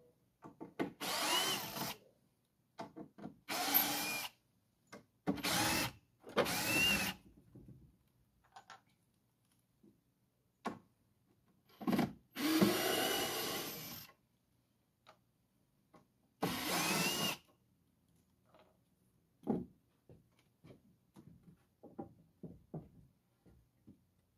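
A handheld power drill-driver runs in short bursts, backing the screws out of wooden deck boards. There are about six runs of one to two seconds each, each winding up at the start, with the longest near the middle. Light wooden knocks and handling sounds come between the runs and near the end.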